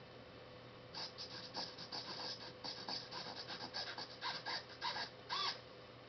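Electronic control-panel prop giving a fast, irregular run of short clicking blips and chirps, about five a second, ending with a louder chirp. A faint steady hum runs beneath.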